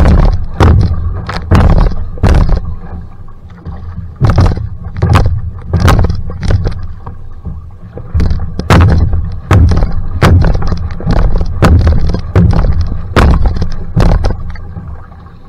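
Single-person outrigger canoe (va'a) paddled at sprint pace: the blade catches and pulls through the water in a quick, regular rhythm, a little faster than one stroke a second, each stroke a splash with a heavy low thud beneath it and gurgling water between.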